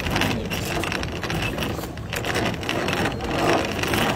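Hand-cranked, gear-driven blender running as its crank is turned by hand, the blades churning chopped pineapple into juice in the plastic jar.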